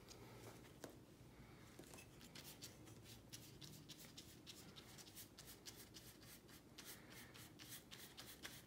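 Faint, scratchy strokes of a bristle paintbrush spreading glitter paint across a sheet of paper. The strokes are short and quick, several a second, and come thicker from a couple of seconds in.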